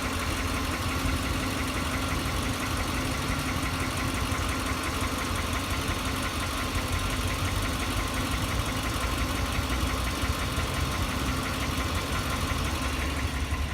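Lexus LX470's 4.7-litre 2UZ-FE V8 idling with a steady, rapid knock. The owner has ruled out valve clearance and says it now knocks constantly; one shop blamed the camshafts.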